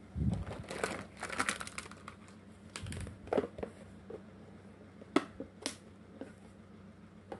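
Hard plastic toy doctor-kit pieces and their plastic carry case clattering and clicking as they are handled: a soft knock and a dense rattle in the first two seconds, then a few separate sharp clicks.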